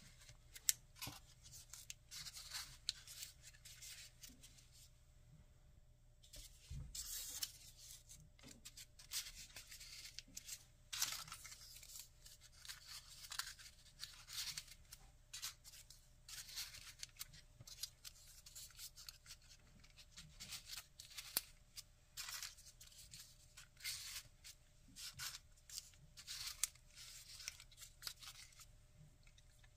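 Folded paper units of a 3D origami model rustling and crinkling as they are handled, in quick irregular crackles with a short pause about five seconds in.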